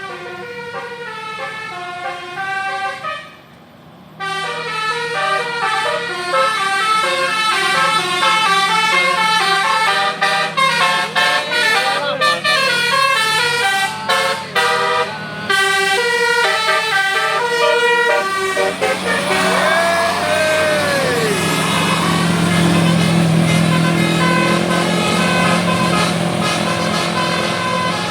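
Bus 'telolet basuri' multi-tone musical air horn playing a fast melody of quick stepped notes, with a brief break about three seconds in. Later come swooping siren-like glides up and down, then a steady low drone.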